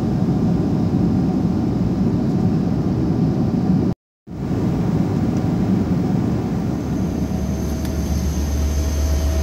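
Steady low rumble of jet airliner cabin noise in flight. It cuts out abruptly for a moment about four seconds in. Near the end a steady low hum and a faint thin tone come in.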